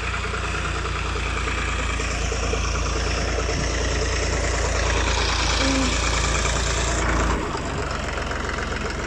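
Fordson Super Dexta tractor's three-cylinder diesel engine running steadily. About seven seconds in, its low rumble drops away sharply while the engine keeps running.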